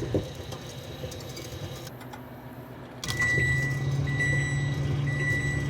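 Microwave oven running with a low hum. About three seconds in the hum grows louder and the end-of-cycle beeps begin: three long, high beeps about a second apart, signalling that the cooking time has run out.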